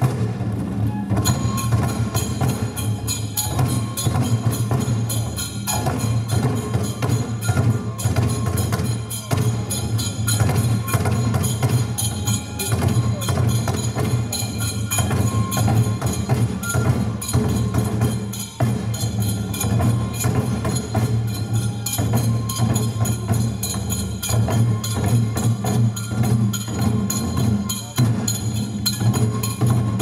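Live Japanese folk-dance music: hand-held taiko drums beaten in a steady, quick rhythm, with sharp clacking percussion over it.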